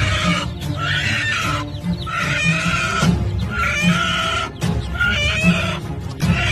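Music with a steady beat, layered with chicken clucking in a phrase that repeats about once a second.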